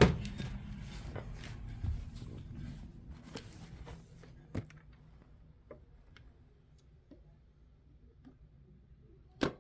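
A plastic VHS case being handled: scattered small clicks and rubbing over the first few seconds, then sparse single clicks, and one sharp knock near the end.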